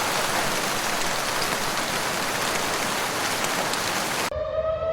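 Heavy rain pouring down in a dense, steady hiss. About four seconds in it cuts off abruptly and a siren starts up.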